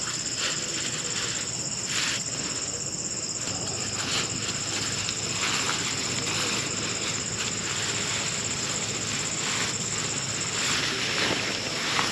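Rain falling steadily, with scattered drops tapping, under a continuous high-pitched insect trill that cuts off near the end.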